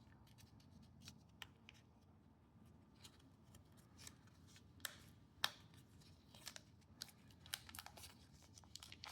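Faint scattered clicks and small rustles of hands rummaging through a small accessory carrying case and lifting out its contents, with a couple of sharper ticks about five seconds in.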